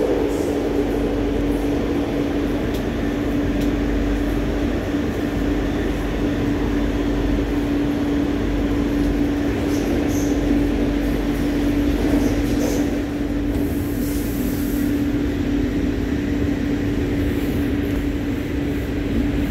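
Madrid Metro train running through a tunnel, heard from inside the passenger car: a continuous rumble of the moving train with a steady hum.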